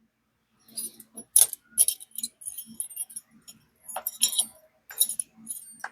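Loose steel hex keys from a disassembled folding hex key set clinking and jingling against each other as they are handled, starting about a second in as a string of sharp, ringing clinks.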